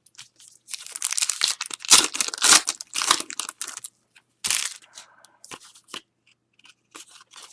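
Foil wrapper of a trading-card pack crinkling and tearing open, then a few short rustles and ticks as the cards are handled.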